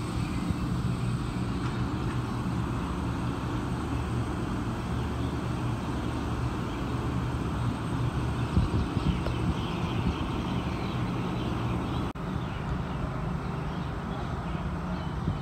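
Steady low mechanical drone with a constant hum, broken by a brief sharp dropout about twelve seconds in.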